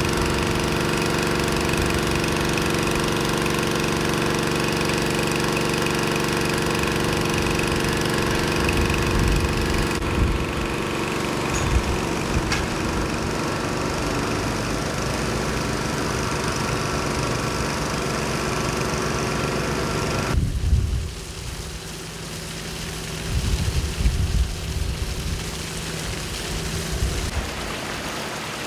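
A small petrol engine driving a portable water pump runs steadily. After about ten seconds a fire truck's engine is heard with water splashing as the truck drives through floodwater. About twenty seconds in, this gives way to the quieter rush of floodwater flowing through a street.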